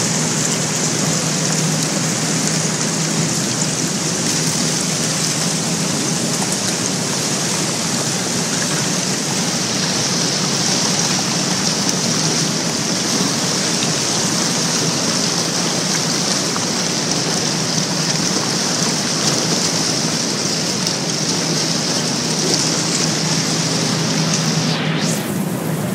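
A boat's hull pushing through broken river ice: a steady noise of ice and churning water, over a low, steady engine hum. The noise briefly dips near the end.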